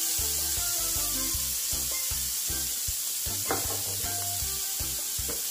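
Shrimp frying in hot olive oil in a cast-iron skillet: a steady sizzle, with one short knock about three and a half seconds in.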